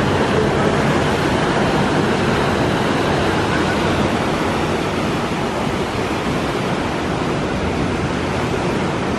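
Sea waves breaking and washing over a rocky shore: a steady, loud rush of surf.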